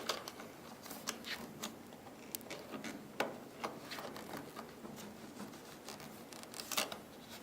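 Faint scattered clicks and light scrapes of an iMac's memory compartment tab being pulled and a RAM module being handled and eased out of its slot, with a short cluster of clicks near the end.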